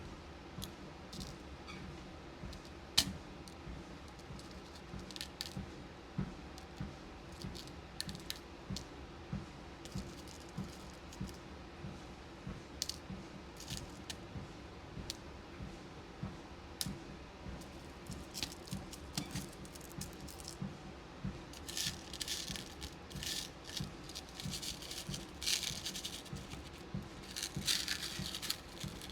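Beads clicking and rattling as they are handled and sorted, with one sharp click about three seconds in and longer bursts of rattling in the last several seconds. Under it runs the steady low hum and regular footfalls of a walking pad.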